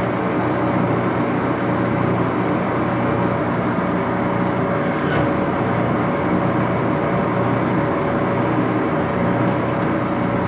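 A 14 x 30 inch Axelson geared-head lathe running under power with no cut: a steady, noisy whir of the motor and wide-face headstock gears, with a constant hum.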